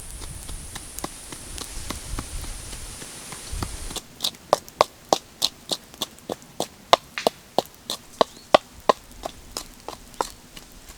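Chopping on a wooden block: a run of sharp knocks, about three a second, starting about four seconds in after a stretch of faint low rumble and high hiss.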